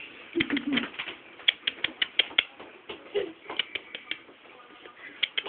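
Irregular light clicking taps, several a second, with a brief low voice-like sound about half a second in.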